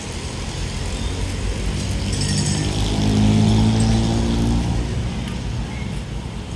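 A passing vehicle engine, a low hum that grows louder to a peak about three and a half seconds in and then fades, over a steady low rumble of traffic.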